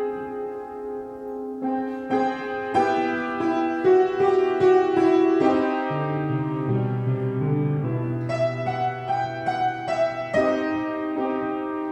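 Solo piano playing the score of a comic opera: a run of chords and repeated notes, with a low bass line coming in about six seconds in.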